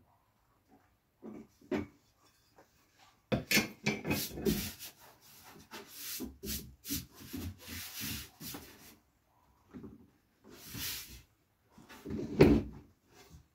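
Parts and packaging being handled: irregular bursts of rubbing and scraping, with a sharp knock a second before the end.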